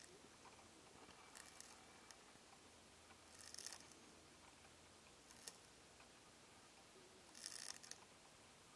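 A Euhadra quaesita land snail rasping a leaf of Japanese hydrangea vine with its radula while feeding: faint, crisp scraping strokes, four in all, each under a second, the strongest near the end.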